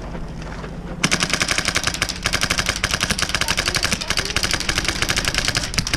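Airsoft electric rifle firing on full auto: a fast, even rattle of shots that starts about a second in and keeps going until just before the end.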